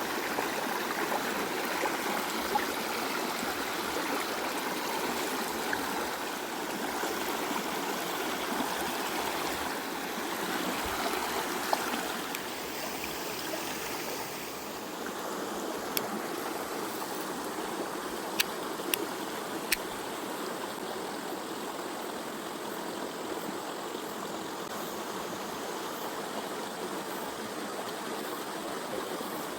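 Mountain stream running full after rain: a steady rush of water. A few short sharp clicks stand out, several of them in the middle of the stretch.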